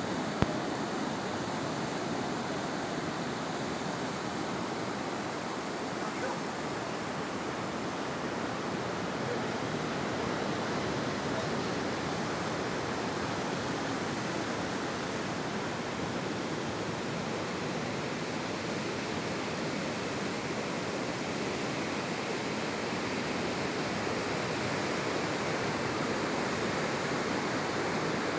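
Ocean surf on a beach: a steady rush of breaking waves, with a brief click just after the start.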